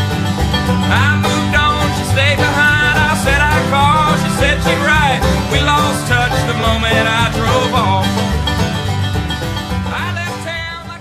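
Background bluegrass-style music with banjo and guitar, fading out near the end.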